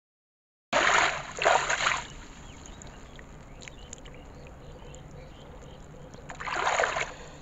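Shallow water splashing and sloshing as hands scoop and grope inside a fish net, in two bursts, one about a second in and one near the end, with quieter water movement and small ticks in between. It opens with a brief dead silence.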